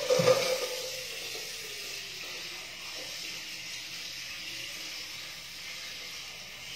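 A pot clanks onto the stove with a short ring, then a steady hiss and sizzle comes from the stove as the pot of water for a boiled egg heats.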